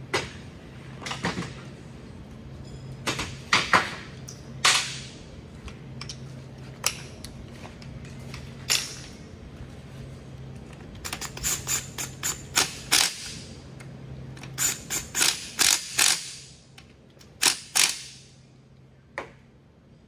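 Cordless drill-driver run in many short bursts, several in quick runs, driving and snugging down the valve body bolts on a 4L60E automatic transmission.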